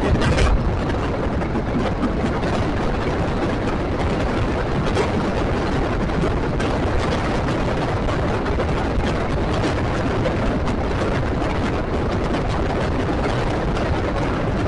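Passenger train running at speed, heard from an open carriage window: a steady rush of wind and rumble of the wheels on the rails, with faint ticks now and then.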